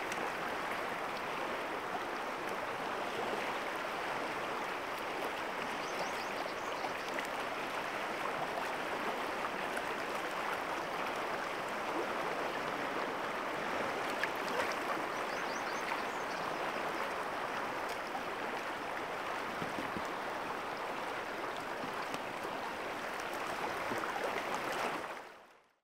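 Steady rushing of a flowing river, the Deschutes running over its bed, fading out near the end.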